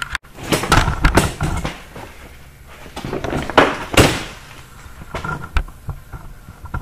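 A series of knocks and clatters in two bunches, the first about half a second in and the second about three to four seconds in, with the loudest knock about four seconds in; a few lighter knocks follow.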